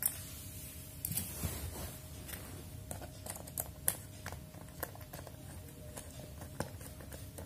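Scattered faint clicks and scrapes of a wire being fastened to a terminal of a two-pin socket, over a faint steady hum.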